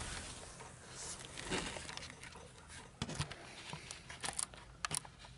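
Handling noise as the camera is set down and positioned: a scattering of light knocks, taps and rustles.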